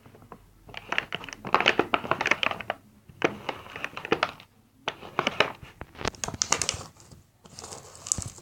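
Glue-and-borax slime being stirred and worked, making wet crackling, squelching clicks in several bouts with short pauses between; the borax water has just made it set into slime.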